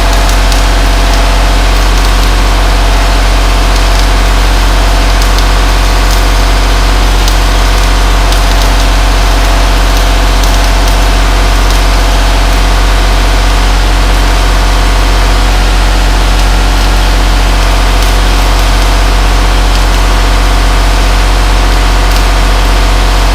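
Welding equipment running while plates are welded onto a cracked dozer frame: a loud, steady, unbroken hum with a constant hiss over it.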